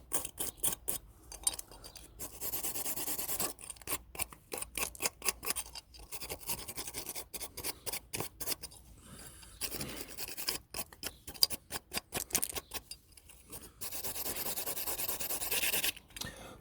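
Brake parts being cleaned by hand: rapid scratchy scraping and scrubbing strokes on metal, with two longer stretches of steady hiss.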